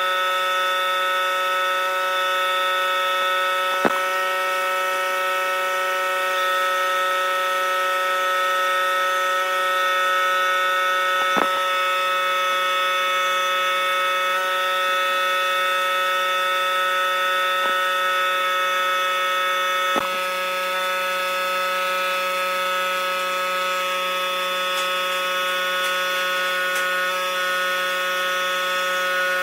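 Woodworking power tool running steadily with a constant multi-pitched motor whine, with three brief knocks as the work goes on.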